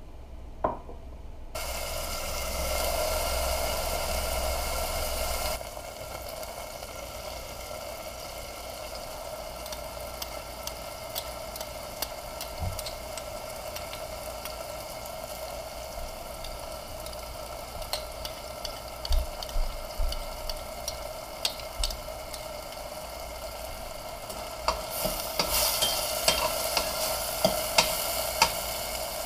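Diced tomatoes, scallions and serrano pepper frying in oil in a stainless steel pot: a steady sizzle that starts suddenly about a second and a half in and is loudest for the first few seconds. A spoon clinks and scrapes against the pot as the food is stirred, most often near the end, where the sizzle also grows louder.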